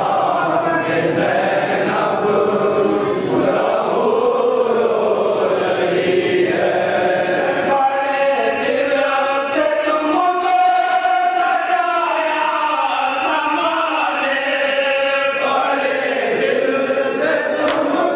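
Men's voices chanting a noha, a Shia Muharram mourning lament, in long drawn-out melodic lines. One voice leads over a microphone and the gathered men join in.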